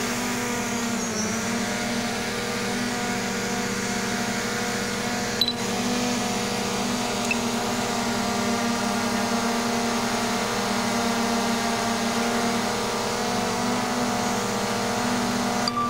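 DJI Mavic Pro quadcopter hovering about a metre off the ground just after take-off, its propellers giving a steady buzzing whine. One small click about five and a half seconds in.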